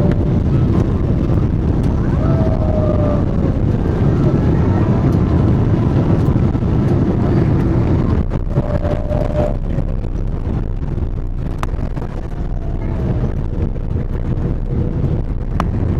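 Boeing 777-300 cabin noise as the airliner comes in to land: a loud, steady low rumble of the jet engines and rushing air, with faint whines that slide in pitch, and a few light clicks in the second half.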